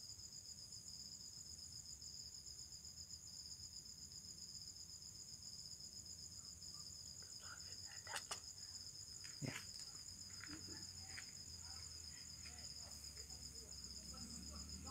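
Crickets trilling steadily and faintly at two high pitches, a fast pulsing chorus, with two sharp clicks a little past halfway.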